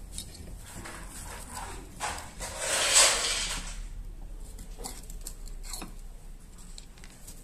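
Light clicks and scrapes of a steel pick working on the internal parts of a Jericho 941 FB pistol frame during disassembly. Near the middle, a louder hiss swells and fades over about a second and a half.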